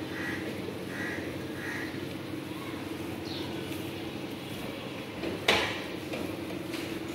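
A cow eating straw, with a steady hum underneath and one sharp knock about five and a half seconds in.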